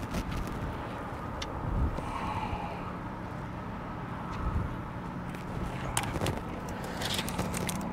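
Small fish being unhooked by hand from a high-low bottom rig: scattered light clicks and taps from the hook, sinker and line, over a steady low rumble.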